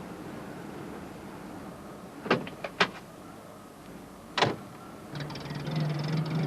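Van door sounds, a few sharp clicks and knocks, then the van's engine starting about five seconds in and running with a steady low hum.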